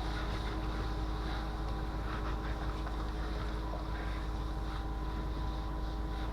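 An engine running steadily, a constant low rumble with a steady hum over it, with some wind noise on the microphone.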